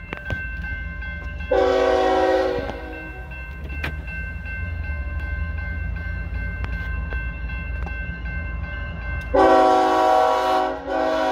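Union Pacific diesel locomotive's multi-chime air horn sounding for a grade crossing. One short blast comes about a second and a half in, then a long blast starts about nine seconds in, broken briefly near the end. A steady low rumble and the crossing bell's steady ringing continue underneath.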